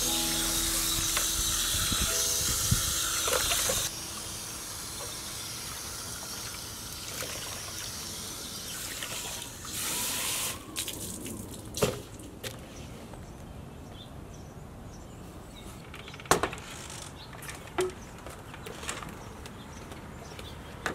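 Water spraying from a garden hose nozzle onto a whole fish in an aluminium foil pan, cutting off about four seconds in. A second short spray comes around ten seconds, followed by a few scattered knocks and clatters.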